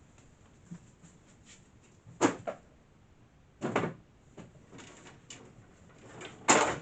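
Three short clunks, like cupboard doors or objects being handled, with a few faint clicks between them.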